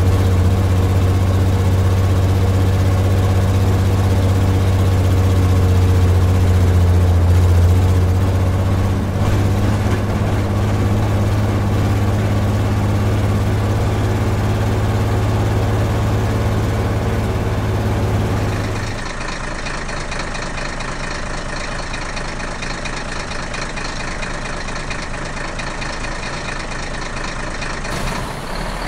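Heavy vehicle engine running steadily with a deep drone, switching abruptly about two-thirds of the way through to a different, quieter engine sound.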